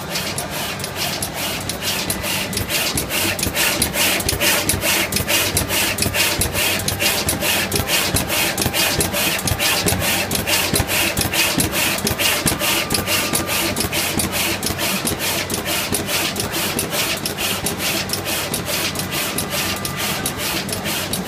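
High-speed multi-head SMT pick-and-place machine running: a rapid, even clicking, about four or five a second, as the placement heads cycle, over a steady machine hum.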